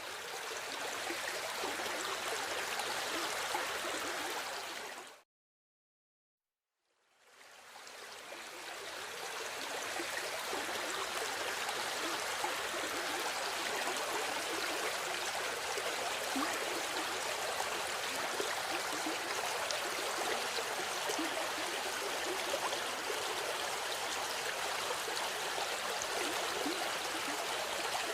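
River water flowing, a steady rushing sound. About five seconds in it fades out to silence for a second and a half, then fades back in.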